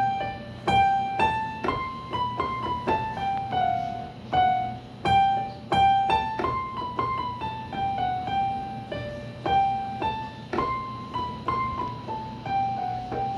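Electronic keyboard in a piano voice playing a simple melody one note at a time, picked out with one finger at about two notes a second, each note struck and left to fade.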